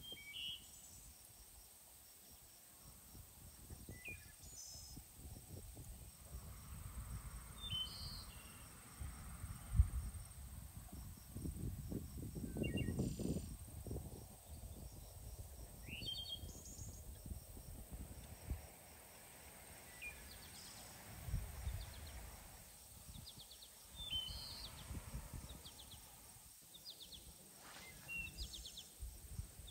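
Birds chirping in short calls every few seconds over a low, uneven wind rumble on the microphone, with one sudden thump about ten seconds in.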